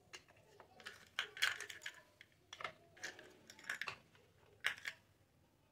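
Small plastic toy kitchen pieces clicking and clacking against each other and the table as they are handled: an irregular run of light clicks, a few of them sharper, about one and a half seconds in and again near the end.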